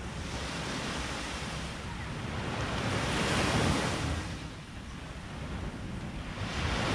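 Waves breaking and washing up the beach, swelling about three seconds in and again near the end, with a low rumble of wind on the microphone underneath.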